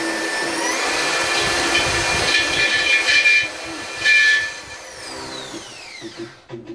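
Corded electric hand drill, with a blunt bit, spinning up and boring into a metal plate. Its motor whine rises, holds steady with two louder surges of cutting, then falls in pitch as the drill spins down after the trigger is let go, about five seconds in.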